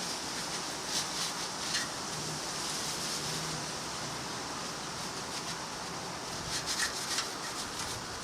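Steady hiss with a few faint light clicks and taps, a cluster about a second in and another around seven seconds in.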